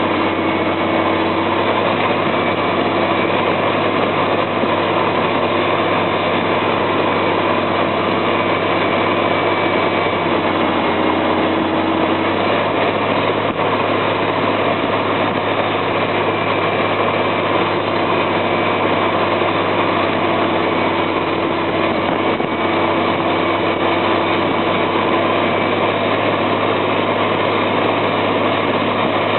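Caterpillar articulated water truck's diesel engine running steadily while its roof-mounted water cannon sprays a jet of water straight up.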